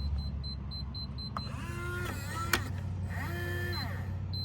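TEEHO TE002 keyless entry deadbolt: a quick row of short high keypad beeps as the code is entered, then the lock's small electric motor whines for about a second, a sharp click, and the motor runs again for about a second as it drives the bolt. A short beep comes near the end.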